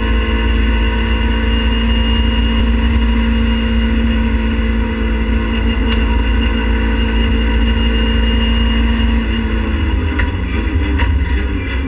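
Race car engine heard from inside the cockpit, held at steady high revs, around 6,700 rpm in fifth gear at flat-out speed. Near the end the note falls as the driver lifts off, with a few sharp clicks.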